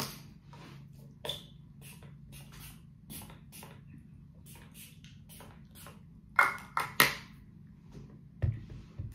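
A small glass spray bottle being handled and sprayed: a quick series of short hissing spritzes and clicks, with louder clinks and knocks about six and seven seconds in and a low bump near the end.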